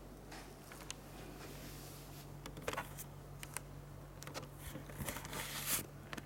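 Handling noise: scattered rustles and soft clicks, bunching up about two and a half seconds in and again near the end, over a faint steady low hum.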